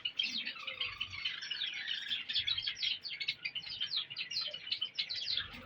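A group of caged Java sparrows chirping: many short, high chirps overlapping in a continuous chatter.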